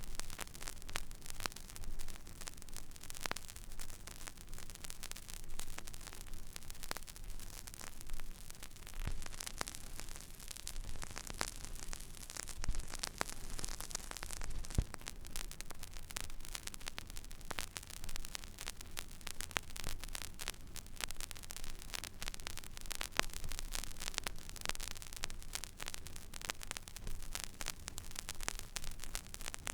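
Record player stylus riding an empty vinyl groove: a dense, irregular crackle of small clicks and pops over a steady hiss and a low hum.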